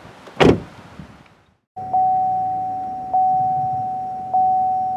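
A car door thuds shut about half a second in. After a brief cut to silence, a steady ringing electronic tone sounds, restruck three times about a second and a quarter apart, each time fading a little.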